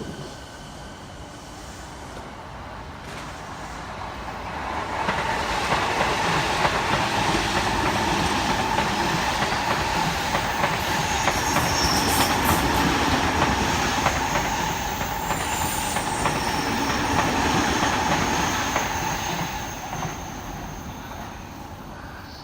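E217 series electric train moving through the station at low speed: wheel-on-rail rumble with a steady motor tone, swelling over the first few seconds, loud through the middle and fading near the end. A brief high wheel squeal comes about halfway.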